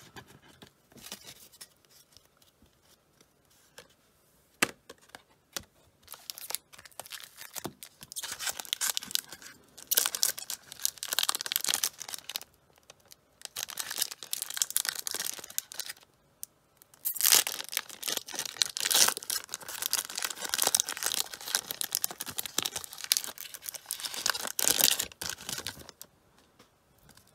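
Foil wrapper of a 1994 Fleer Ultra football card pack crinkling and tearing as it is worked open by hand. A few faint clicks come first, then repeated crackly bursts, loudest in the last third.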